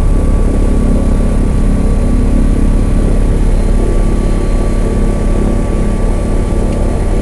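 Douglas DC-3's two radial piston engines running steadily on the ground, heard from inside the cockpit as a loud, even drone with a faint high whine above it.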